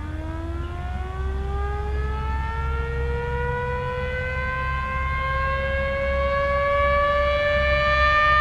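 Siren on a radio-controlled model dive bomber, one continuous wail whose pitch rises steadily and grows louder as it winds up, over a steady low rumble.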